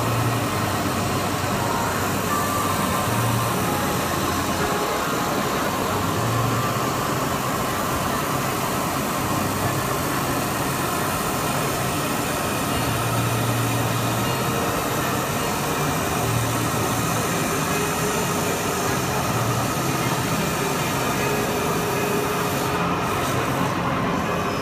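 Gateway Jet GJ5138 laser cutter running as it cuts a sheet: a steady rushing hiss, with a low hum that switches on and off every few seconds as the cutting head moves. The high hiss briefly thins near the end.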